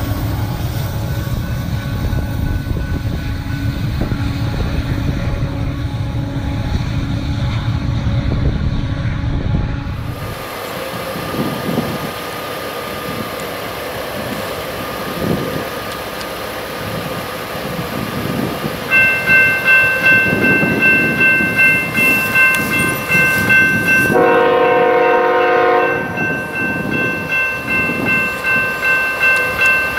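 Freight train passing with a heavy low rumble that drops away abruptly, then wheels clacking over rail joints. About two-thirds of the way in, a warning bell starts ringing steadily about twice a second, and a locomotive air horn sounds one blast of about two seconds over it.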